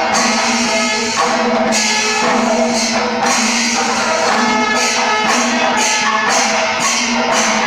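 Panchavadhyam temple ensemble playing: ilathalam cymbals clash thickly and rhythmically over the drums, with a steady held tone sounding underneath.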